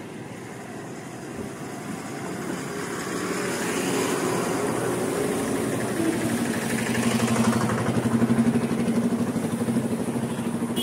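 A motor vehicle engine running close by. It grows louder over the first few seconds, then holds a steady, fluttering note from about halfway through.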